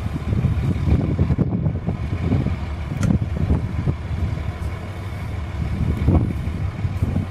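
Flatbed truck engine running, with wind gusting on the microphone.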